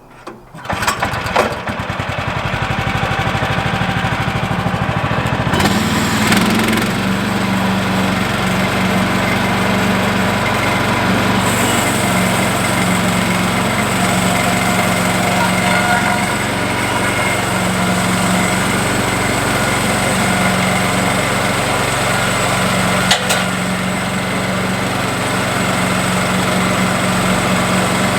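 Small gasoline engine of a Woodland Mills HM126 bandsaw mill starts about a second in. About five seconds later it revs up and then runs steadily at speed driving the band blade, with one brief sharp click near the end.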